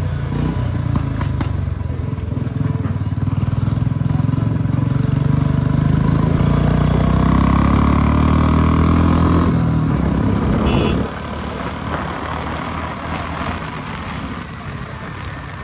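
Royal Enfield Bullet 350's single-cylinder engine through a loud aftermarket shot-bottle silencer, pulled hard under throttle. The note builds and rises through the middle, then drops back sharply about eleven seconds in as the throttle comes off.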